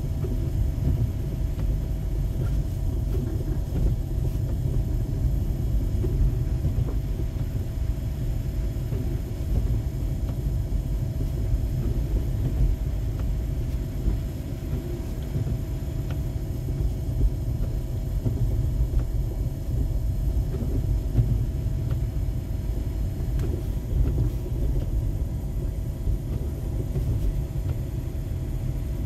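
A car driving on a snow-covered road, heard from inside the cabin: a steady low rumble of engine and tyres, with a faint steady hum.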